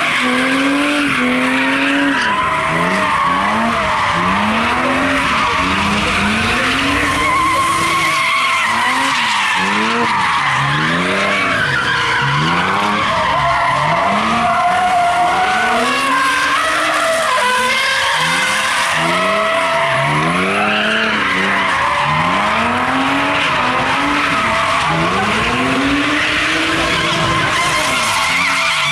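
BMW E36 3 Series drift cars sliding in tandem: the engines rev up and fall back over and over, about once every second or so, while the rear tyres squeal and screech on the tarmac.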